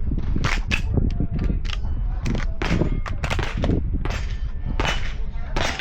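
Pistol shots on an outdoor steel-target range, about a dozen sharp cracks at irregular intervals, with steel plates ringing, over a steady low rumble.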